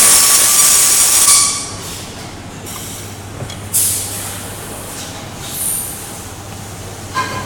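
Ultrasonic plastic welding machine sounding a loud, high-pitched screech with steady tones during the weld, which cuts off about a second and a half in. After it a steady low hum remains, with a couple of short hisses.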